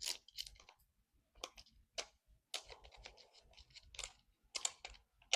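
Irregular clicks and light rustling from handling the parts of a cordless mini chainsaw as it is opened for assembly.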